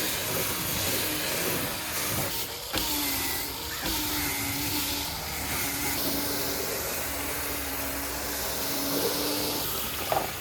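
Cordless drill spinning a bristle brush attachment against plastic body cladding wetted with degreaser: a steady motor whine that wavers under load over the hiss of bristles scrubbing, with brief dips about three and four seconds in.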